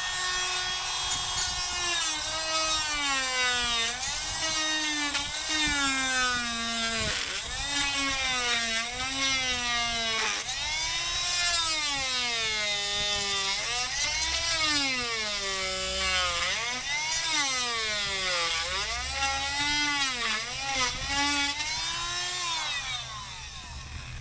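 Power drill boring a large hole through the wooden house wall, its motor speed sagging under load and picking up again over and over, then stopping near the end.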